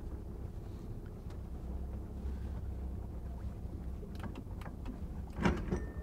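Motor cruiser's engine running slowly with a steady low rumble, with wind on the microphone. A few sharp clicks and knocks come near the end.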